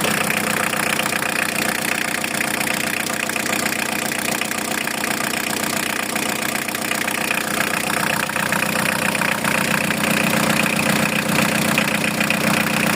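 Van engine idling steadily during a test run, with the new coolant expansion tank being checked for leaks.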